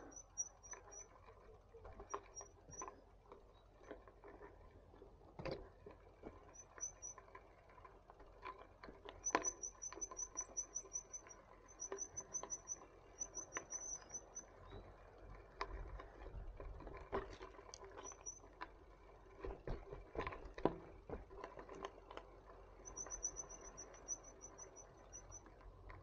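Bicycle rolling slowly over a rough, twig-strewn park path: scattered clicks and knocks from the tyres and bike, with short strings of rapid high-pitched ticking every few seconds.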